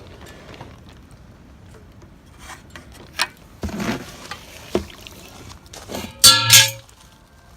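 Water sloshing and splashing, with a couple of sharp knocks, as a pipe is fished out of cold water. Near the end comes a short, loud, pitched cry in two pulses.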